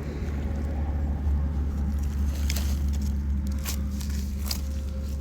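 Vehicle running with a steady low drone, a few short clicks or rattles over it in the second half.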